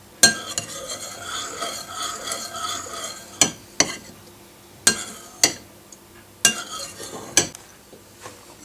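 A spoon stirring honey into warm syrup in a saucepan, scraping round the pan for about three seconds, then clinking sharply against the pan several times.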